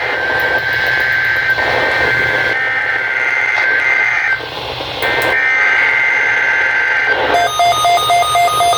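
NOAA Weather Radio Emergency Alert System header: the harsh, buzzing data bursts of a SAME digital header received over the radio, with static, in long stretches broken by a short gap about four seconds in. Near the end a fast beeping pattern of pitched tones begins.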